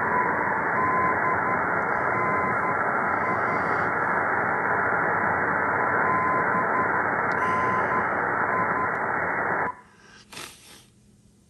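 Static and hiss from an Icom IC-7610's receiver in AM mode, tuned to 341 kHz, with a faint 1 kHz tone coming and going through it. The receive audio cuts off suddenly near the end as the volume knob is turned down, leaving a few faint clicks.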